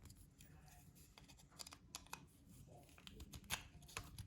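Faint, scattered plastic clicks and ticks from an Acura key fob's shell as a metal key blade is twisted in its seam to pry the case apart, with a slightly louder click about three and a half seconds in.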